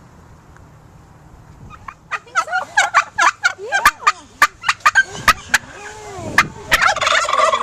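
Domestic turkeys gobbling: quiet for the first two seconds, then rapid rattling gobbles that grow into several birds gobbling over one another near the end.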